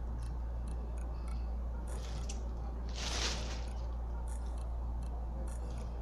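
Small wires of an ethernet cable being handled and straightened by hand, with faint scattered clicks and one short scraping rustle about three seconds in, over a steady low hum.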